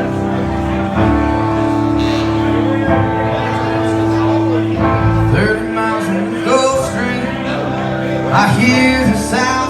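Band playing a country-rock song's instrumental intro, with guitar over steady sustained chords.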